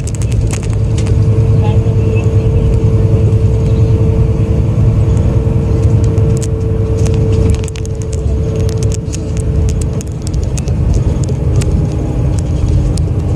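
Hino S'elega QRG-RU1ASCA coach's straight-six turbo-diesel running under way, a deep steady drone with a whine over it and frequent rattling clicks. The engine sound dips about seven and a half seconds in, and the whine fades out a few seconds later.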